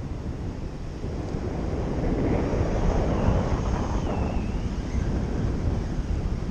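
Wind from flight rushing over the microphone of a camera on a paraglider pilot, a steady buffeting that grows louder about two seconds in.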